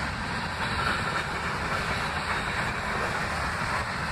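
Ferromex freight train's covered hopper cars rolling past at close range: a steady noise of steel wheels on the rails.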